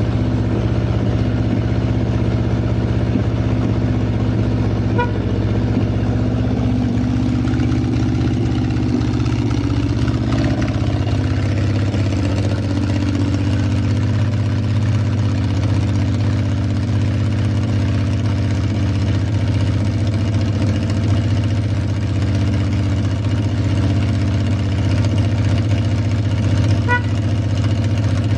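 Yamaha XS750 Special's three-cylinder engine idling steadily and evenly, a stable idle with no abnormal noise.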